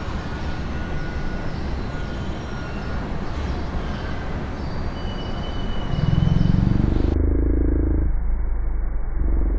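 A steady, noisy rumble with faint high whistling tones over it. About six seconds in it swells into a much louder, deeper rumble that turns muffled, then breaks off sharply at the end.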